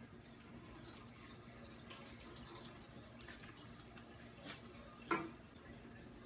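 Faint trickling and splashing of water as fish-bag water is drained through a net into a bucket, with one sharp knock about five seconds in.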